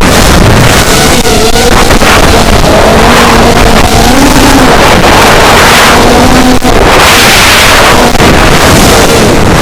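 Brushless motors of an FPV racing quadcopter (Racerstar 2205 2300KV spinning KingKong 5040 three-blade props) running in flight, heard from the onboard camera: a loud buzzing whine whose pitch rises and falls with throttle, mixed with rushing wind on the microphone.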